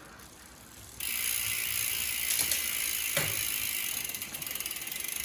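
Bicycle rear drivetrain turning on an 11-42T 9-speed cassette with a Shimano Altus derailleur: chain and freehub running with a steady fast ratcheting that starts suddenly about a second in. Two short clunks come part way through as the derailleur shifts across the cogs.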